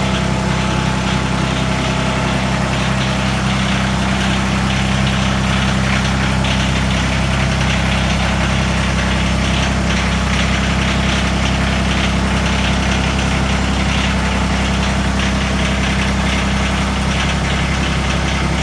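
The three-cylinder diesel engine of an LS MT122 subcompact tractor runs steadily at low revs, with an even, unchanging drone.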